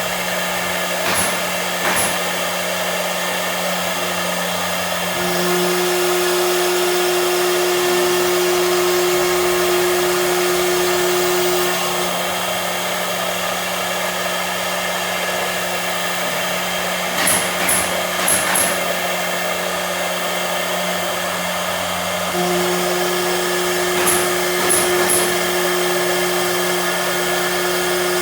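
CNC machine running with a steady whir and a low hum. A higher steady tone comes in for several seconds twice, and short high ticks come in small clusters.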